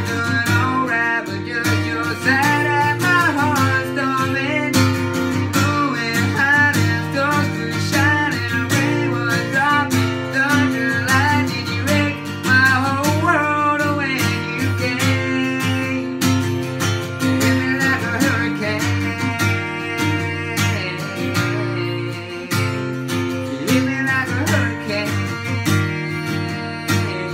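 A man singing along to his own strummed acoustic guitar, the guitar's chords steady under the vocal line.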